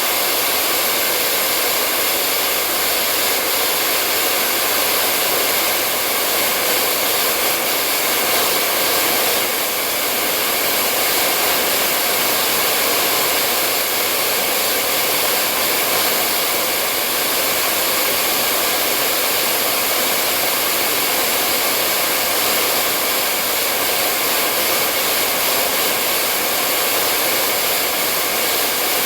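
Hair dryer running steadily: a constant airy rush with a faint motor hum and no change in speed, played continuously as white noise to lull a baby to sleep.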